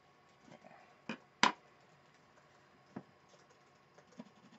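Wooden colored pencils being put down and picked up while swapping from a white pencil to a black one: a few short, sharp clicks, the loudest about one and a half seconds in.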